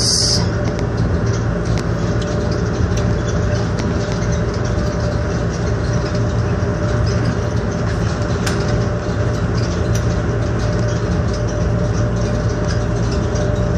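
Automated airport people-mover shuttle running along its elevated guideway, heard from inside the car: a steady hum with a held mid-pitched whine and a few faint ticks.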